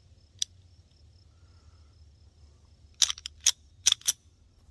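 Sharp metallic clicks and clacks from the prototype pistol being handled after a failure to feed: one click, then a quick run of about five clicks in the last second and a half.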